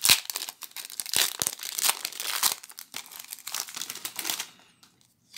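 Plastic-foil wrapper of a Magic: The Gathering booster pack crinkling as it is worked open and the cards are pulled out. The crinkling dies away about a second before the end.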